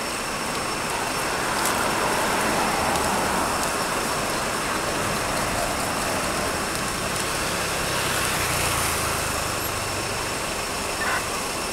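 Steady background noise of road traffic, with the low hum of a passing engine swelling about two-thirds of the way through.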